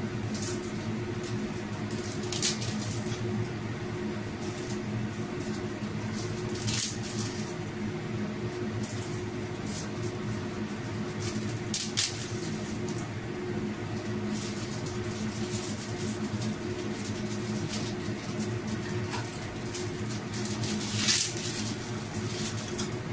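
A frying pan of sardine broth simmering on a gas stove under a steady low hum. A few short, sharp crackles come as dry udong noodles are dropped in by hand.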